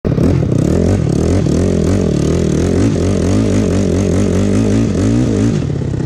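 Yamaha YFZ450 quad's single-cylinder four-stroke engine revving up and down as it is ridden, its pitch rising and falling quickly as the throttle is worked, then settling lower near the end.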